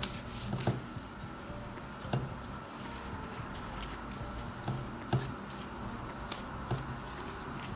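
A pastry brush dabbing and stroking oil over crisp filo pastry sheets in a metal baking tray: scattered soft taps and light crinkling, over a faint steady hum.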